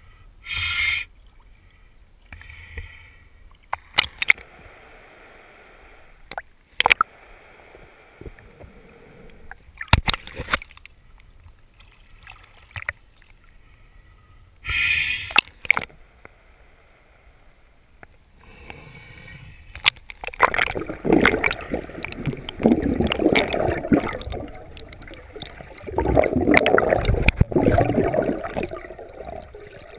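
Sea water lapping and slapping against an action camera's waterproof housing held at the surface, with scattered short splashes. In the last ten seconds the camera is pushed under, and the sound turns to loud muffled underwater gurgling and rushing.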